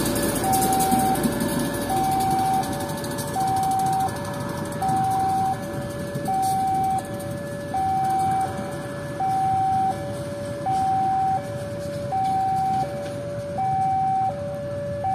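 Railway level-crossing warning alarm sounding an even alternating two-tone 'ding-dong', a high note and a lower note of just under a second each, repeating steadily. A passing train's rumble fades under it over the first few seconds.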